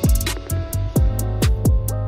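Background music: an electronic pop track with a plucked melody, bass, and a steady drum-machine beat with hi-hats.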